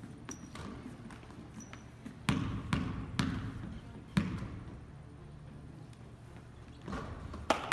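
Basketball bouncing on a hardwood gym floor: three quick bounces about two seconds in, another about a second later, and two more near the end.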